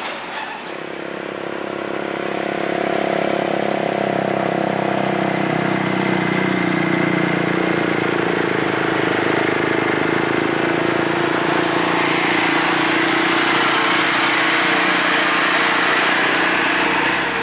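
Diesel engine of a light truck loaded high with logs, running steadily and growing louder over the first few seconds as it approaches, then holding at that level as it passes close by.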